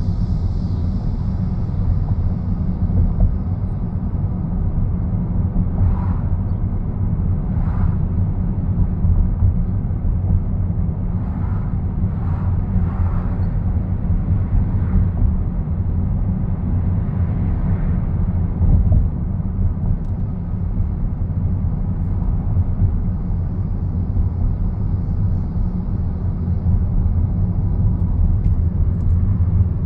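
Steady low rumble of a car driving at low speed, engine and tyre noise heard from inside the cabin, with a few faint light ticks along the way.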